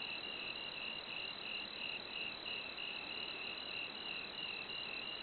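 Crickets chirping in an even rhythm of about four chirps a second, over a constant high-pitched tone.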